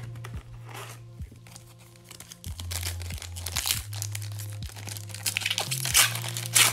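Foil wrapper of a hockey card pack crinkling and tearing as hands rip it open and slide the cards out, loudest near the end, over background music with a steady low bass line.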